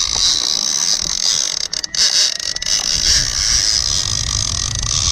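Clicker on a conventional sturgeon reel buzzing steadily as the hooked fish pulls line off, with wind rumbling on the microphone.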